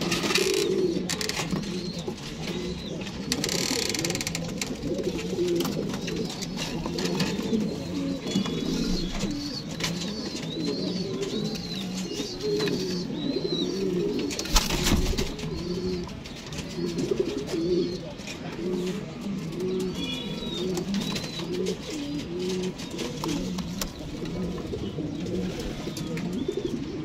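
Pigeons cooing over and over in low, rolling coos, with thin high chirps now and then. A short thump about halfway through.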